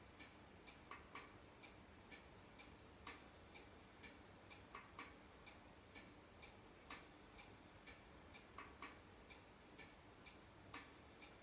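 Faint, regular clock-like ticking, about two ticks a second, in a pattern that repeats every few seconds.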